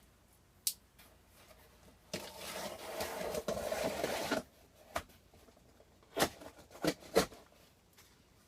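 A package being opened by hand: a click, then a rasping tear lasting about two seconds, followed by several short knocks and rustles of handling.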